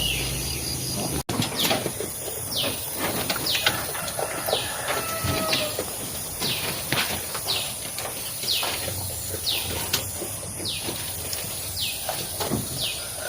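Goats eating fodder eagerly, with irregular crunching and rustling as they chew. Short, falling bird chirps repeat every second or less.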